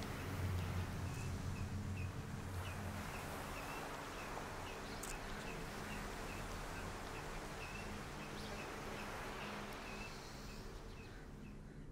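Outdoor ambience: a steady wash of noise, like surf, with small high chirps repeating two or three times a second over a low held drone.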